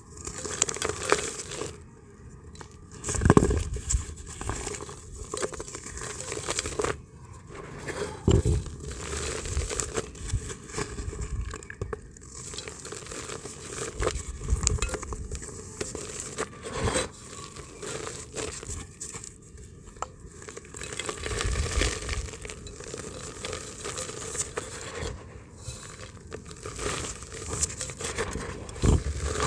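Dry clay dirt chunks crushed and crumbled by hand into a clay pot: irregular crunching and crackling, broken by a few dull thumps.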